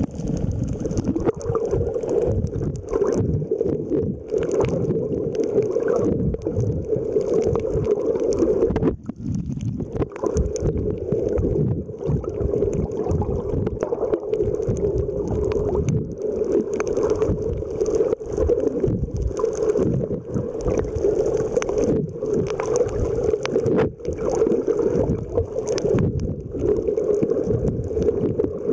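Muffled underwater water noise, heard from just below the surface: a steady churning rush with uneven low surges. It drops out briefly about nine seconds in.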